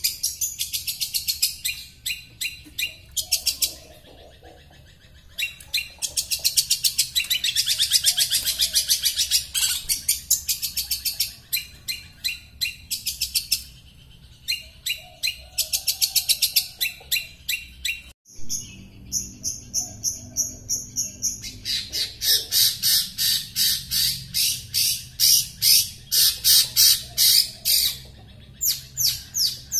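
Long-tailed shrike (cendet) singing: bouts of rapid, high-pitched chattering notes broken by short pauses. The song comes louder and faster in the last third.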